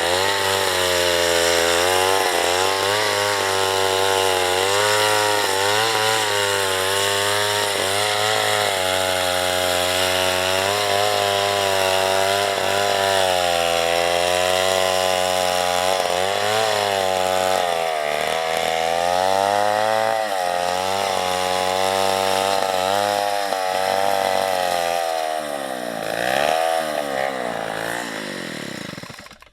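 Two-stroke chainsaw running under load while cutting wood, its engine note dipping and recovering as the chain bites. Near the end the engine drops off, picks up once briefly and winds down.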